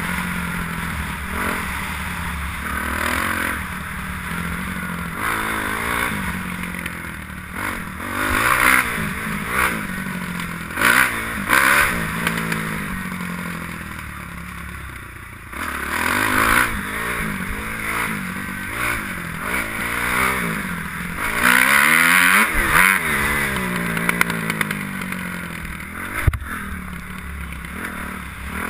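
Kawasaki KX250F motocross bike engine revving up and down over and over as it is ridden hard around a dirt track, with several louder bursts of throttle. Wind rushes over the helmet-mounted camera throughout.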